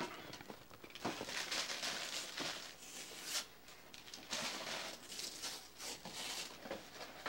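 Wrapping paper rustling and tearing in uneven bursts as a small child unwraps a present.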